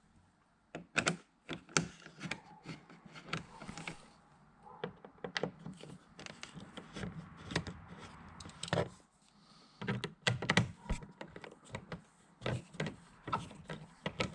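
Irregular clicks and light knocks of hand tools and metal bolts, made while the bolts holding a car's door panel are undone and taken out.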